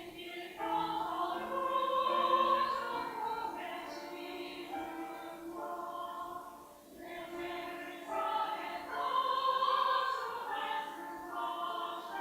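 Church choir singing a Sunday anthem in long held phrases. The sound swells twice, easing off briefly between.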